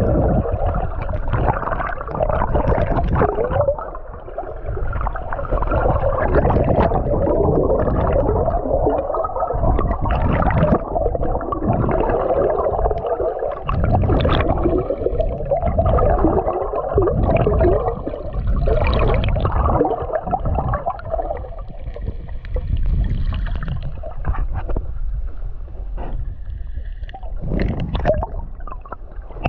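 Muffled rushing and gurgling of water heard by a GoPro 10 held underwater as it moves along, with a low rumble and scattered small clicks and knocks.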